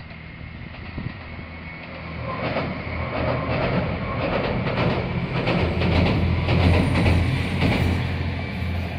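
Two-car JR West KiHa 187 diesel railcar train crossing a steel girder river bridge: diesel engine drone and wheels clattering over the rail joints, growing louder from about two seconds in, loudest past the middle, then easing off near the end.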